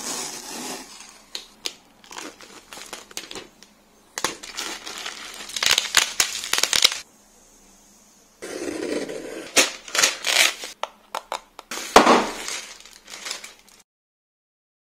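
Close-miked unboxing sounds in bursts: cardboard tearing as a box's tear strip is pulled open, then crinkling and rustling of plastic film and packaging, with sharp taps and clicks. They stop about a second before the end.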